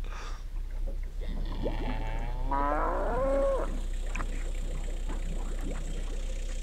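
A cow mooing once, a long call that rises in pitch and drops at the very end.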